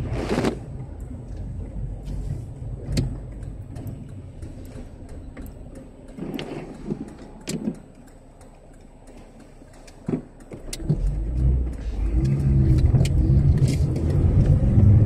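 A car heard from inside its cabin as it drives through standing floodwater, its engine running under a low rumble. A brief rush of noise comes at the start, light scattered ticks follow, and over the last four seconds the engine grows louder with a steady low hum as the car pulls ahead.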